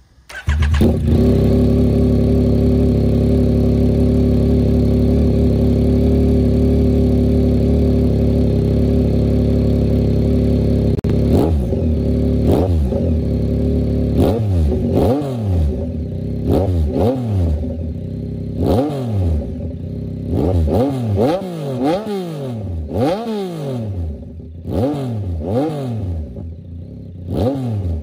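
A 2022 Yamaha XSR900's inline-three engine, breathing through an aftermarket SC Project CR-T exhaust, starts up about half a second in and idles loud and steady. From a little under halfway through it is blipped in a string of quick revs, more than a dozen, each pitch rising sharply and falling back.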